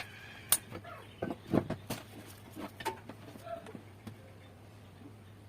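A scatter of sharp clicks and knocks, like small metal parts of a gun being handled and set down on a workbench, over a steady low hum. The clicks come once about half a second in, then in a quick cluster between about one and two seconds in, then fading off.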